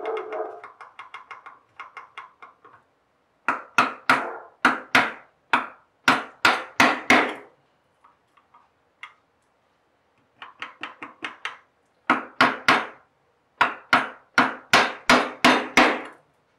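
A mallet striking a bench chisel chopping out dovetail waste in gumwood. Runs of quick light taps alternate with series of heavier blows, about two to three a second.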